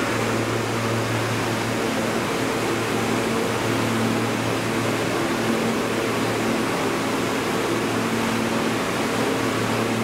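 An R160 subway car's air conditioning and auxiliary equipment running while the train stands with its doors open: a steady hum with a low drone under a constant hiss.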